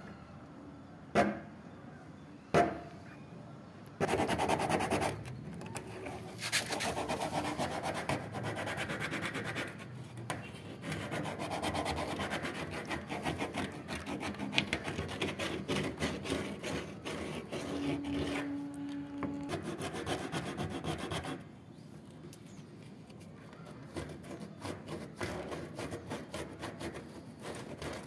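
Three sharp knocks, then a long stretch of rapid scraping and rasping at the outlet hole of a plastic water tank as its rim is worked clean, shedding plastic shavings. Near the end the scraping thins to light, scattered scratches.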